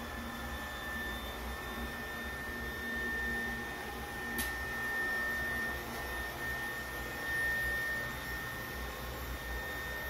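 Steady background hum with a low rumble and a thin, steady high-pitched whine, and a single click about four seconds in.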